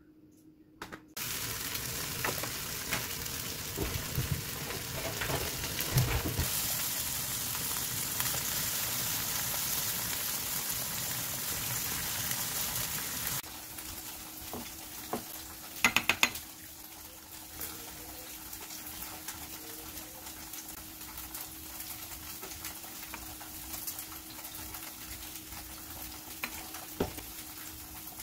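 Tofu slices sizzling in oil in a frying pan, with a few knocks as pieces go in. About halfway through the sizzle cuts off and gives way to quieter handling of bottles and a spoon, with a short cluster of sharp clicks, as a braising sauce is mixed in a glass bowl.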